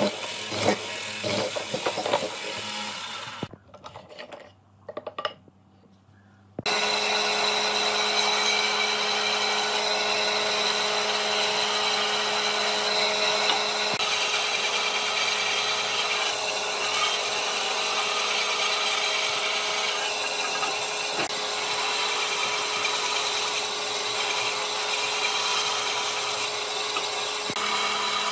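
Woodworking with tools: a few seconds of rough, uneven strokes on wood and a short near-quiet pause, then an electric power tool starts about seven seconds in and runs steadily on the wood with a constant hum.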